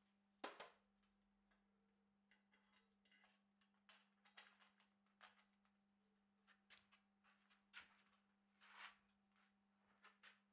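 Quiet clicks and small rattles of a steel bicycle chain being handled and laid onto a single-speed chainring, with a sharper click about half a second in.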